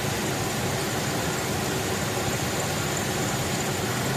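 2000 Ford Ranger's 3.0-litre V6 idling steadily with the accessory belt running. Its idler pulley is wobbling slightly, a sign of a worn pulley that is not yet making noise.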